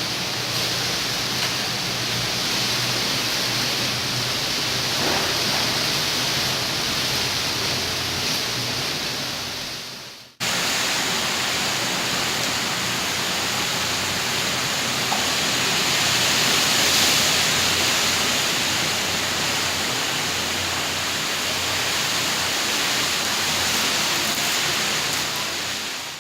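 Hurricane rain and wind: a steady, dense hiss. It fades out about ten seconds in and comes straight back.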